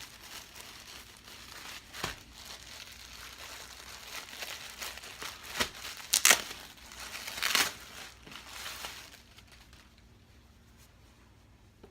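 Packaging crinkling and rustling as a folded t-shirt is unwrapped and shaken out, with a few sharper, louder crinkles in the middle before it dies down near the end.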